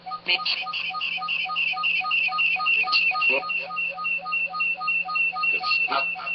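Rhythmic electronic beeping, about four short beeps a second, getting louder about a third of a second in, with a few brief scratchy sweeps over it.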